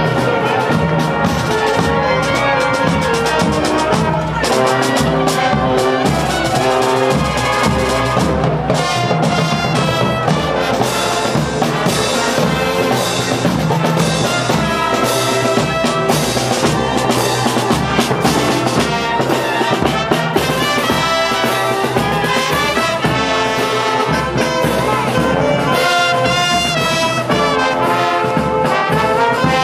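Marching street brass band of trumpets and trombones playing, over a steady drum beat.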